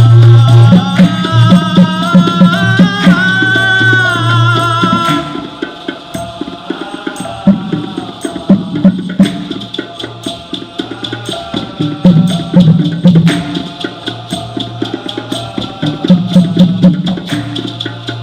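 Dikir barat music: for the first five seconds a sung line is held and bent over the percussion. After that the percussion carries on alone, with rapid tapped strokes and deep drum swells that keep coming back.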